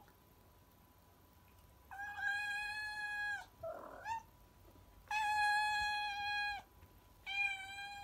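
Cat meowing: two long, drawn-out meows of about a second and a half each, with a short rising chirp between them, and a third meow starting near the end.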